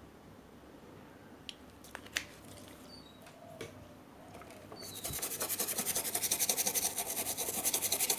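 A few light clicks, then about five seconds in a rapid, rhythmic scraping or rubbing starts and grows louder.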